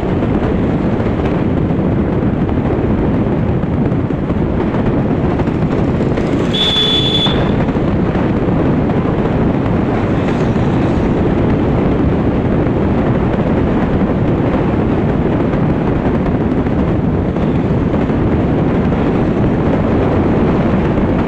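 Steady rush and rumble of wind on the microphone of a moving motorcycle, with the bike running under it at cruising speed. A short high beep sounds about seven seconds in.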